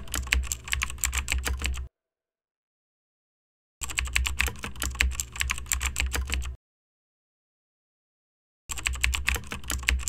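Fast typing on a computer keyboard, a quick run of key clicks, in three stretches of two to three seconds each, broken twice by dead silence.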